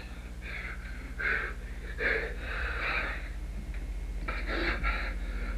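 Stifled, breathy laughter: a string of short puffs of breath, about six of them, with no words.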